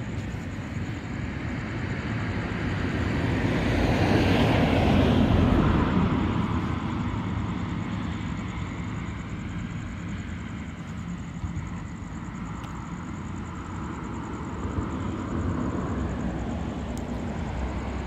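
A passing vehicle heard at a distance: a low rumble that swells to a peak about five seconds in and then slowly fades.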